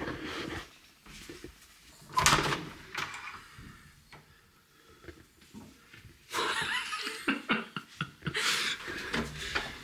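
A room door being opened by its lever handle: a sharp thud about two seconds in and a few latch clicks, then rustling and soft laughter over the last few seconds.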